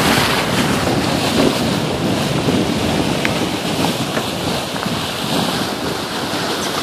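Water rushing and splashing along the hull of a sailboat under sail, with wind buffeting the microphone; a steady noisy wash with no engine heard.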